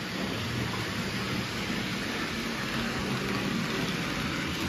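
N gauge model Class 55 Deltic locomotive running along the track on plain DC with no sound decoder: a steady whir of its small motor and wheels on the rails, under an even background hiss.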